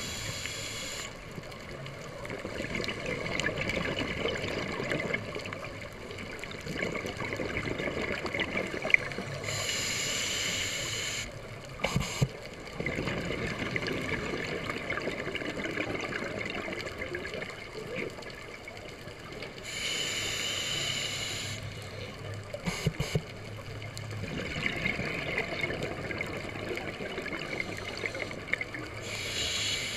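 Scuba breathing through a regulator underwater, heard through a camera's waterproof housing: a short hiss about every ten seconds, with bubbling and crackling from exhaled bubbles in between. A few small clicks near the middle.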